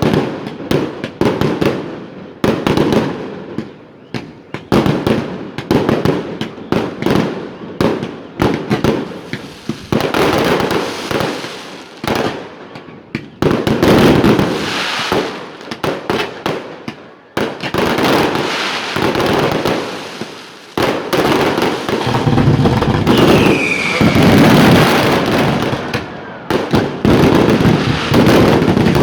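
Fireworks display: a dense run of loud shell bursts and crackling bangs coming in waves. Near the end there is one falling whistle.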